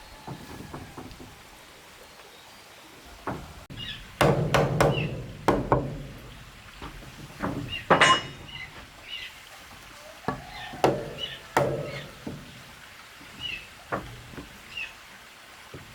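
Heavy blows striking wood at an uneven pace, some in quick clusters and some singly, with faint short bird chirps between them in the second half.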